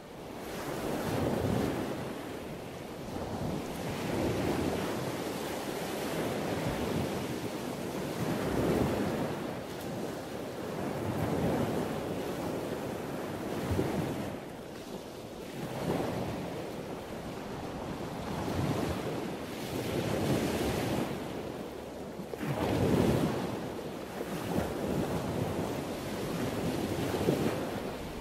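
Ocean surf: waves rushing in and washing back, swelling and fading about every two seconds.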